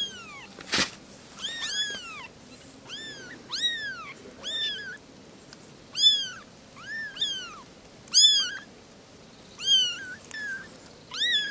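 Very young kittens mewing: a dozen or more short, thin, high mews, each rising then falling in pitch, coming one or two a second. One sharp click about a second in.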